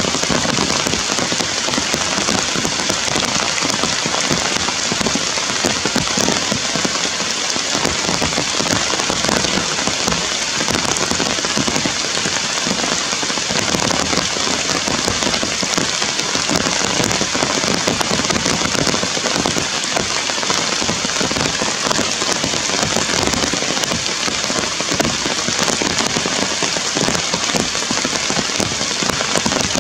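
Steady heavy rain falling on forest foliage: a dense, even hiss of countless drops with no letup.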